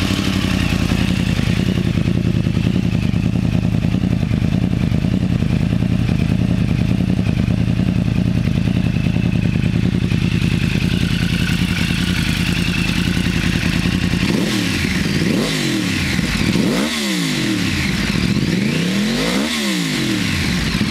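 2009 Yamaha R1's crossplane inline-four engine idling steadily, already warm from a ride. In the last several seconds its tone sweeps up and down while the loudness stays even.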